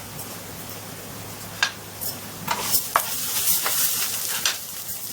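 Cumin, asafoetida, ginger and garlic sizzling as they roast in a pan, with a spoon stirring and scraping against the pan; a single click about one and a half seconds in, then a run of louder scraping strokes from about two seconds in.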